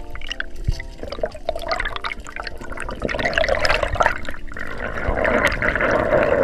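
Underwater water noise: a rushing, bubbling hiss that swells about halfway through, with scattered sharp clicks, over background music with held notes.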